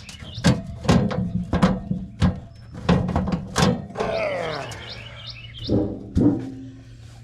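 Sheet-metal access door of a gas package unit being pulled off, giving a series of sharp knocks and clunks, with birds chirping about four seconds in.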